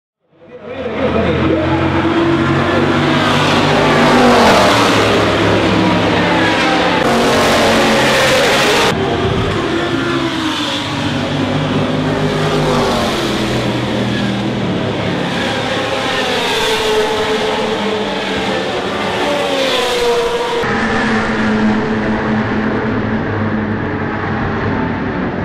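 A pack of GT race cars passing at racing speed, several engines at once, their pitch sweeping up and down through gear changes as car after car goes by.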